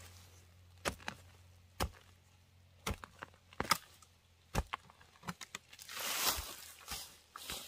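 Blade chopping: sharp strikes roughly once a second, with a short rustling scrape about six seconds in.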